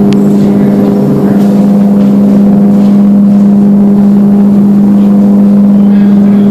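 Loud, steady mechanical drone: a constant low hum with overtones that holds the same pitch and level throughout.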